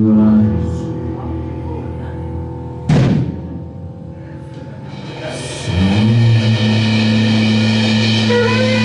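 Live band music: a held low note bending upward at the start, a single drum hit about three seconds in, then from about six seconds a loud sustained note that slides up into place and holds.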